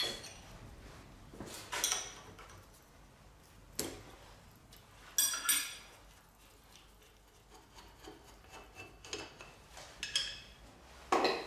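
Steel parts and a spanner clinking and scraping as the tool holder is unbolted and lifted off the head of a metal-working shaper. There are about half a dozen separate sharp metal clinks, some ringing briefly, with rubbing between them; the loudest comes near the end.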